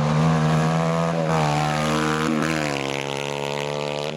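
Kart cross racing buggy's engine running hard at high revs. Its pitch dips briefly about a second in and again between two and three seconds, then holds steady and a little lower.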